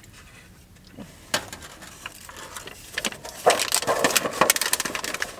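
Paper fast-food bag crinkling as it is folded and handled in the hands, a dense crackle from about three seconds in, after a few soft crunches of chewing.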